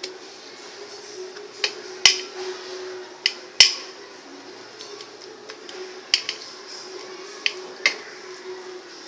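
Sharp clinks and taps of kitchen dishes and utensils being handled, about eight scattered strikes, the loudest two about two and three and a half seconds in, over a steady hum.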